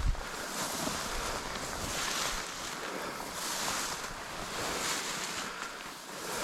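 Water swishing in rhythmic swells, about one every second and a half, from hunters moving through the water. No gunshots.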